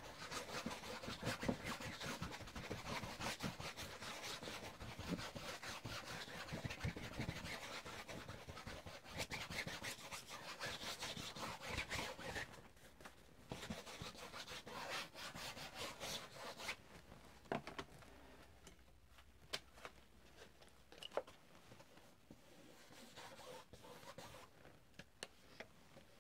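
Paintbrush scrubbing paint onto a stretched canvas: a dry rubbing and scratching, busy for the first half and fainter after about twelve seconds, with a few small clicks.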